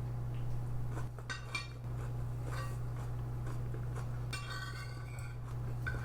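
Cutlery clinking against a plate in two short bouts, over a steady low hum.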